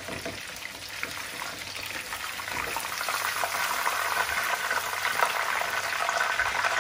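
Hot oil sizzling and crackling around breaded chicken breasts shallow-frying in a pan. It grows louder about halfway through, as the pieces are lifted out with tongs.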